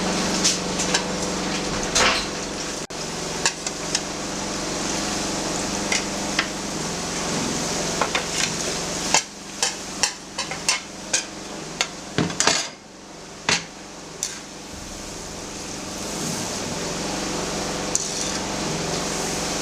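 Chinchin deep frying in hot oil with a steady hiss, while a metal utensil stirs the pot and knocks and clinks against it again and again, most busily in the middle of the stretch. A steady low hum runs underneath.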